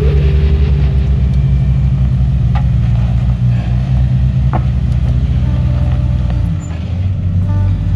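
Jeep Wrangler engine running at low revs as it crawls up a rock ledge, a steady low throb with two sharp knocks partway through. The engine note dips briefly near the end and then picks back up.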